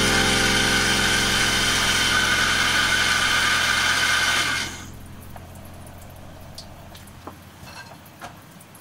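Countertop blender motor running steadily at speed, puréeing cooked pumpkin soup until smooth; it stops a little over halfway through, leaving a quiet background with a few light clicks.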